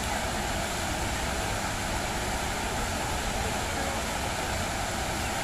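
Steady rushing and splashing of a fountain's water jets falling back into the basin.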